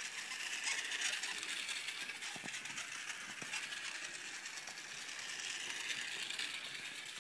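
Small electric toy train running on its track: the motor and gears whirring steadily with a fine rapid clicking of the wheels, and a few faint clicks.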